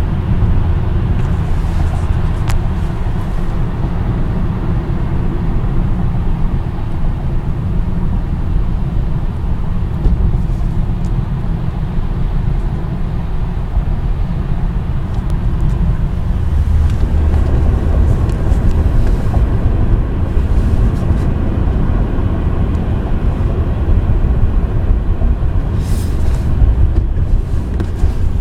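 Car driving at highway speed: a steady, loud low rumble of tyre and road noise that grows a little louder and rougher about halfway through.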